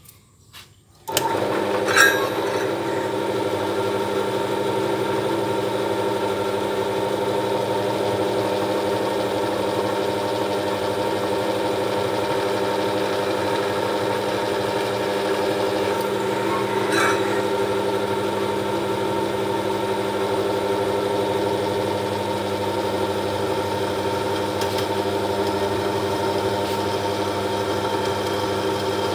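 Electric drill on a drill stand starting up about a second in and running steadily with a constant hum while its small twist bit is fed slowly into a thick aluminium block, a faint tick twice.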